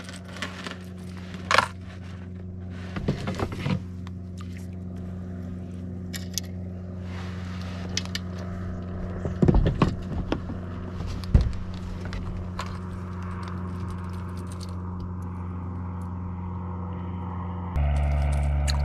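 Small boat's motor running with a steady low hum, which steps up louder near the end. Over it come clicks and scrapes of fishing tackle being handled, the sharpest about ten seconds in.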